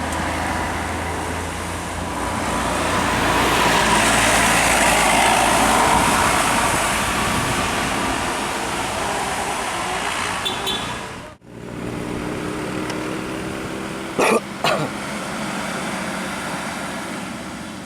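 Road traffic: a vehicle passes by, its engine and tyre noise swelling and then fading. After a cut, an engine runs steadily, and two short, loud blasts come about half a second apart.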